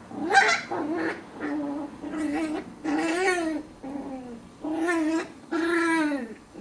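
Chihuahua puppies vocalizing as they play-wrestle: a run of about eight short whining, grumbling calls in quick succession, each rising and falling in pitch.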